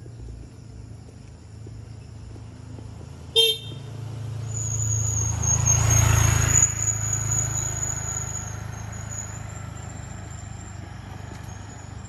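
A short horn toot about three seconds in, then a motor vehicle passes by, growing louder to a peak about six seconds in and fading away.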